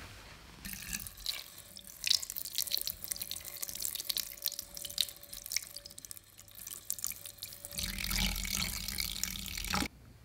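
Tap water running and splashing into a stainless steel bowl as raw chicken pieces are rubbed and rinsed by hand. It begins about half a second in, grows heavier near the end, then cuts off suddenly.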